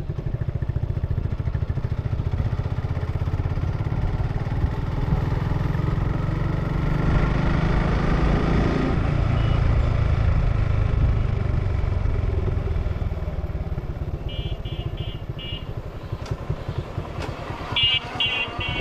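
Motorcycle engine running under way, pulling up to speed through the middle, then easing off as the bike slows. Near the end come two short runs of quick, high-pitched rings.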